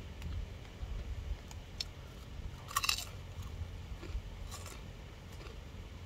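Close-up crunching and chewing of nacho cheese flavoured chips, with a sharp crunch a little under three seconds in and a smaller one about a second and a half later.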